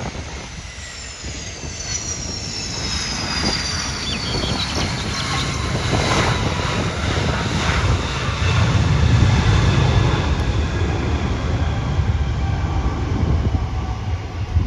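Fokker 100 jet's Rolls-Royce Tay turbofans during the landing rollout: high whines falling steadily in pitch as the engines spool down, over a deep jet rumble that swells to its loudest about nine seconds in.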